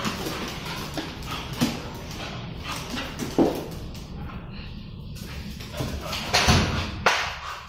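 Two dogs play-fighting on a tiled floor: scuffling and claws on the tiles mixed with dog vocal noises, with a few sharp knocks and a louder burst near the end.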